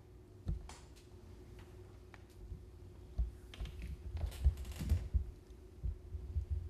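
Quiet, irregular taps and soft thumps, with a short run of rustling about four to five seconds in, from loose sheets of paper being handled on a hard floor.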